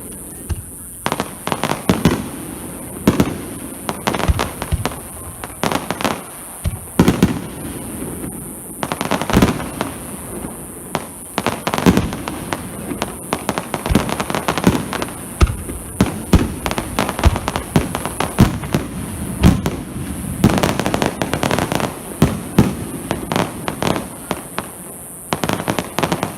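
Fireworks display: a dense, irregular run of sharp bangs and crackling bursts, some coming in quick clusters, over a steady high hiss.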